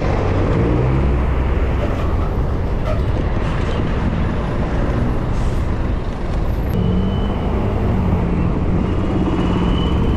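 Steady road and engine noise of riding in traffic, a dense low rumble, with a thin high whine joining in over the last few seconds.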